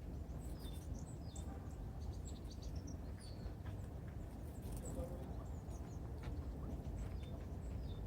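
Small songbirds at a winter feeder giving short, high chirps and calls scattered all through, over a steady low background rumble.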